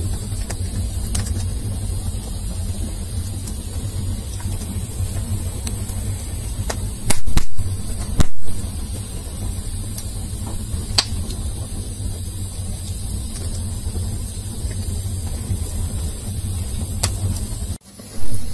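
Split firewood burning: a steady low rumble of flames with sharp crackling pops scattered through. Two short loud bursts come about seven and eight seconds in.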